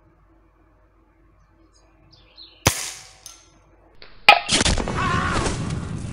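A Hatsan Striker Edge gas-ram break-barrel air rifle fires once, a sharp crack with a short tail, and a fainter knock follows about half a second later. A second sharp crack comes just over a second after that, and then loud music comes in.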